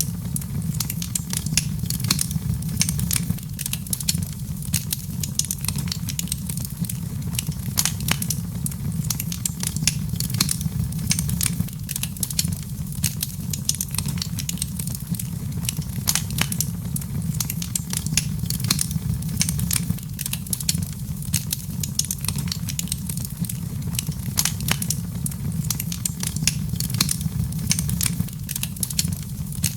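Wood fire crackling in a fireplace: many small irregular pops and snaps over a steady low rumble of the flames.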